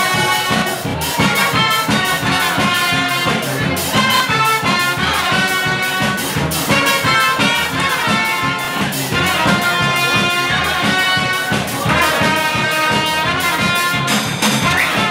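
Balkan brass band playing live: trumpets and trombones carry the melody over a sousaphone bass line and a fast, steady drum beat.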